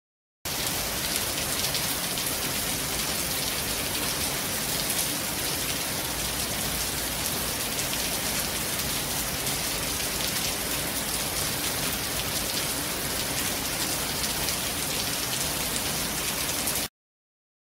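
Heavy rain falling onto wet concrete pavement and puddles: a steady, dense hiss of drops splashing. It starts abruptly about half a second in and cuts off suddenly near the end.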